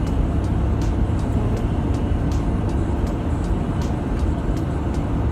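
Steady low rumble of car engine and road noise heard from inside a moving car's cabin, with faint regular ticks a little more than once a second.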